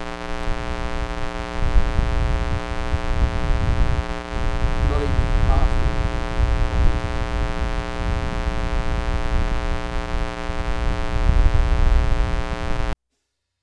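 Steady electrical buzz with many even overtones, over an irregular low rumble of wind on the microphone. It cuts off abruptly near the end.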